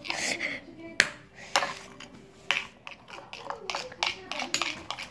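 A utensil clinking and scraping against a bowl at irregular intervals, stirring slime.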